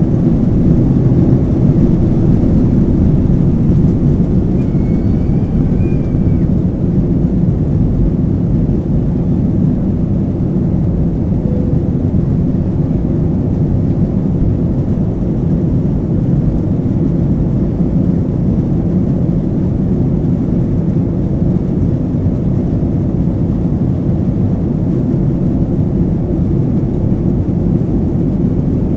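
Steady, loud low rumble of an Airbus A321's jet engines and airflow, heard from inside the passenger cabin.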